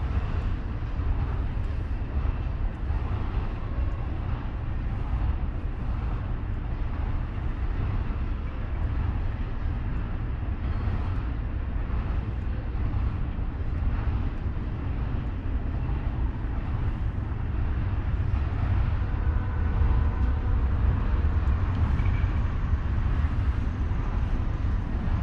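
Steady low rumble of a freight train passing, growing a little louder in the last third, with faint high tones about two-thirds of the way in.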